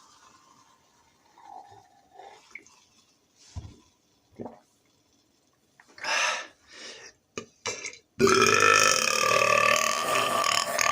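A man's long, loud burp lasting about three seconds, its pitch slowly rising, starting about eight seconds in. Before it come a few short, quieter sounds.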